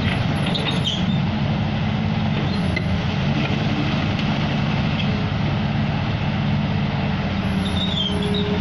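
Diesel engine of a long-reach excavator running steadily.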